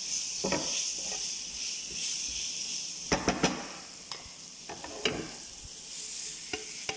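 Sliced onions and bell peppers sizzling in oil in a nonstick frying pan, stirred with a wooden spatula. Three sharp knocks come close together about three seconds in, and a few single knocks follow.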